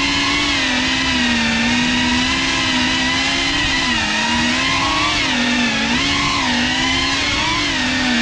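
Motors and propellers of a GEPRC CineLog 35 cinewhoop FPV drone in flight, a steady high buzzing whine. Its pitch dips and rises every second or two as the throttle is worked.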